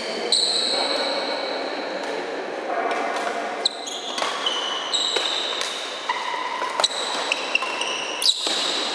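Badminton doubles rally: sharp racket hits on the shuttlecock come roughly once a second, with short high squeaks of shoes on the court floor between them.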